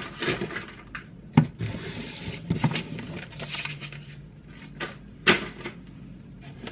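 Packaging being handled in a cardboard box: rustling and rubbing with several sharp knocks and clicks, the loudest about a second and a half in and again past five seconds.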